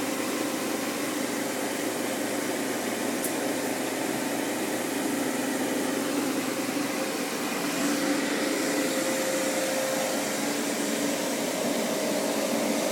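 Refrigerant recovery machine running steadily, its compressor pulling refrigerant out of the system and pushing it into the recovery tank: a steady mechanical hum. The tone shifts slightly and gets a little louder about seven or eight seconds in.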